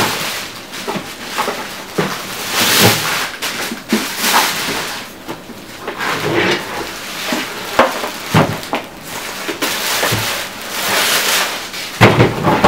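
Clear plastic bag crinkling and rustling in irregular bursts as it is pulled off an electric pressure washer and the unit is handled.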